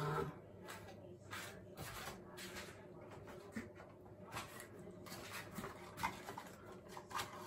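Faint handling noises on a kitchen counter: scattered light clicks and rustles as a paper sachet of baking powder is picked up and handled.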